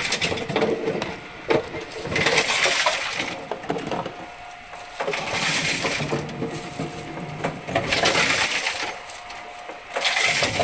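PET bottle collection machine crushing plastic bottles as they are fed in one after another: repeated spells of crackling and crunching about every two to three seconds.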